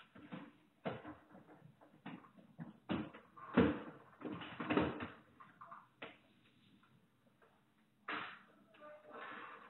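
A door being handled, with a series of knocks, thumps and rustling as bags are moved at the doorway, then a sharp thump near the end as the door shuts.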